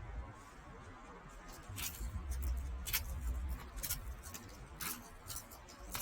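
Peacock's beak pecking feed from a hand: a series of short, sharp clicks about once a second over a low rumble.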